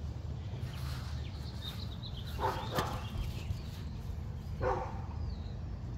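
A dog barking twice, about two seconds apart, with faint bird chirps and a low outdoor rumble underneath.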